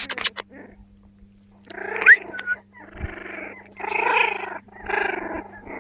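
Four-week-old Jack Russell Terrier puppies giving a run of four short, rough vocal bursts, with a brief high rising squeak about two seconds in. A few sharp clicks come right at the start.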